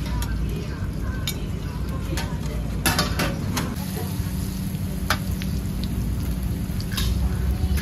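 Stir-frying in a wok: food sizzling in the hot pan while a metal spatula scrapes and knocks against it several times, over a steady low rumble.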